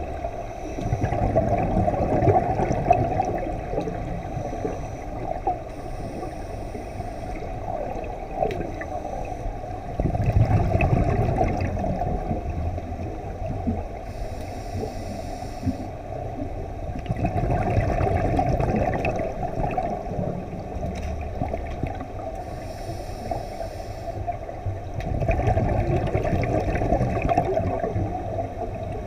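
Scuba diver breathing through a regulator, heard underwater: four bursts of exhaled bubbles gurgling, each about three seconds long and about seven seconds apart, with a short hiss of inhalation between them.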